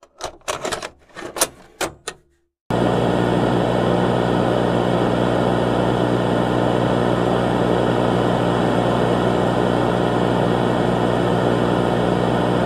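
About six sharp clicks and knocks in the first two and a half seconds. Then a loud, steady electronic hum with static starts suddenly and holds without change.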